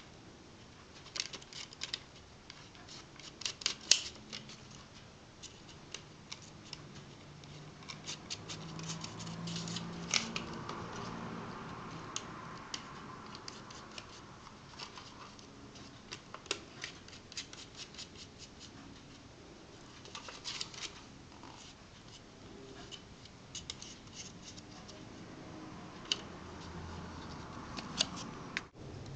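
Irregular light clicks, taps and scrapes from small tools, screws and parts being handled on an Apple PowerBook G4 laptop while it is taken apart, with a sharper click about four seconds in and again about ten seconds in.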